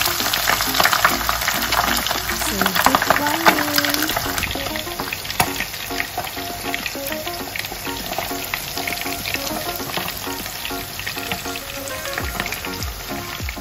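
Lightly breaded sprats deep-frying in hot oil in a wire basket: a dense crackling sizzle, loudest over the first few seconds and then easing a little.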